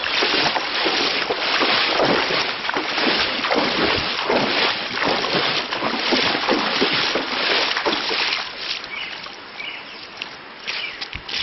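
Hikers wading through a shallow river, the water splashing and sloshing with each step in a dense, uneven rush. It eases about eight seconds in to lighter splashes.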